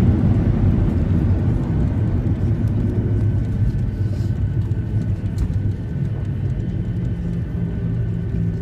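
Cabin noise of a Boeing 737-700 rolling out on the runway just after landing: a low rumble from the engines and wheels that eases off slowly as the jet slows, with steady engine tones standing out more clearly in the second half.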